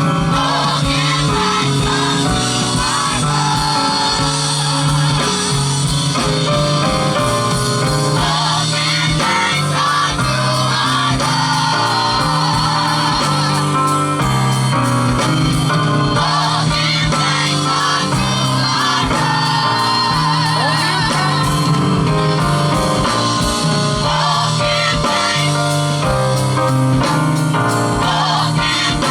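Live gospel music: several voices singing with vibrato over a band with steady bass, guitar and a regular drum beat.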